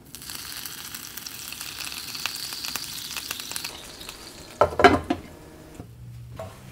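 A teaspoon of water hitting the hot frying pan around souffle pancakes, sizzling and crackling, then dying away after a few seconds. A short, loud clatter follows a little after the middle.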